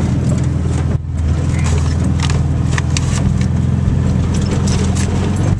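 Subaru station wagon engine running steadily, heard from inside the cabin while driving off-road, with scattered clicks and rattles of loose things in the car.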